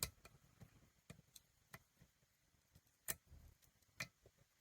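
Lock picking tools working inside a challenge lock: scattered faint metallic clicks and ticks as the pins are picked. The sharpest clicks come right at the start, about three seconds in and about four seconds in.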